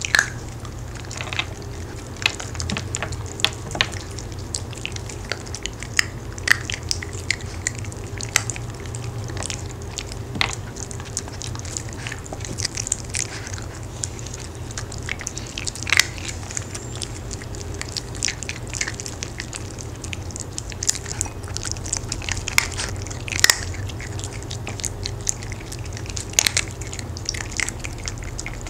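Maltese dogs crunching and chewing hard homemade sweet-potato dog cookies: irregular sharp crunches and clicks, scattered unevenly, over a steady low hum.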